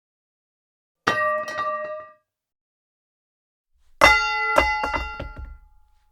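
Metal pipe falling sound effect, twice. First a single clang that rings for about a second. Then a heavier clang followed by several quick bouncing hits, ringing out for nearly two seconds.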